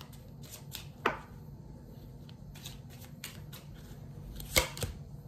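Small Lenormand playing cards being drawn and handled: a few light clicks and snaps, a sharp one about a second in and the loudest near the end.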